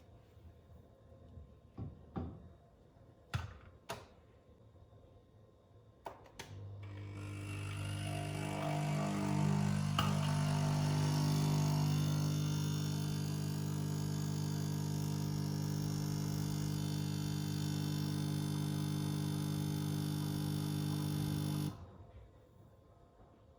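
Nespresso Essenza Mini capsule machine brewing. A few clicks and knocks come first. About six seconds in, its pump starts up with a steady buzzing hum and a rushing, gurgling noise over it, then cuts off abruptly near the end as the brew cycle finishes.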